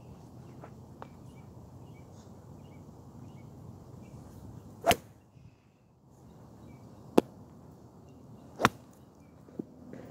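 Golf irons striking balls on a driving range: three sharp clicks of club-face contact, about halfway through, two seconds later and a second and a half after that, with a fainter click near the end.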